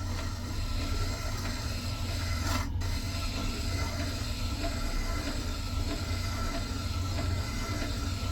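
Bucktools wet sharpener running, its motor humming low while a steel chisel grinds against the slow-turning wet stone with a steady rasping.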